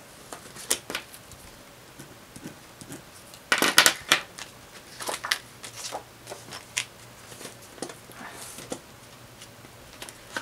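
Clear plastic zippered cash pouches in a ring budget binder being flipped and handled: crinkling and rustling of the vinyl with light clicks, the loudest flurry about four seconds in.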